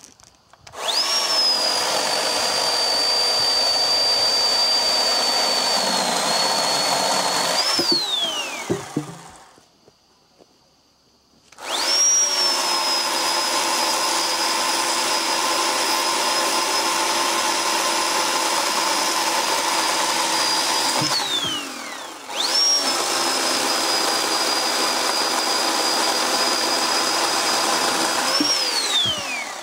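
Oregon 40V cordless electric chainsaw running at full speed through a birch log, a steady high motor whine over the chain's cutting noise. It is started three times, and each run ends in a falling whine as the motor spins down when the trigger is released.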